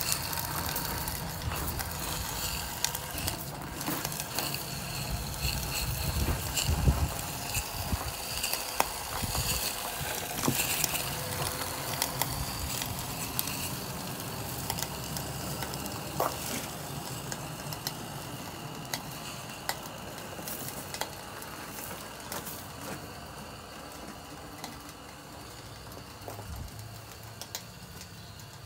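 Small live-steam locomotive with a three-cylinder, 2:1 gear-driven engine, running fast: a rapid mechanical clatter of clicks over a steady steam sizzle, growing fainter through the second half as it moves away.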